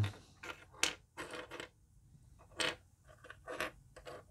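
Loose plastic Rubik's Cube pieces clicking and rattling as they are picked through and handled, a string of irregular light clicks.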